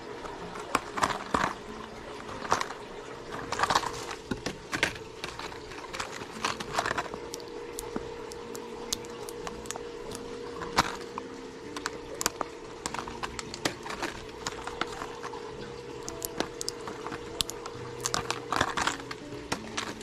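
Plastic lure packaging crinkling and clicking in irregular bursts as packaged minnow lures are handled and hung on display pegs, over a steady low hum.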